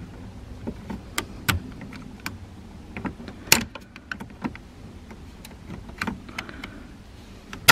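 Irregular plastic clicks, knocks and rattles of a car's turn signal switch and its wiring plugs being worked loose by hand under the steering column, with a sharper snap about three and a half seconds in and another at the end.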